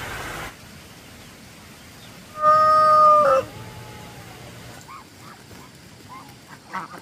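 One loud, steady honk lasting about a second, falling in pitch as it cuts off, about two and a half seconds in. Ducks then start quacking softly in the last couple of seconds.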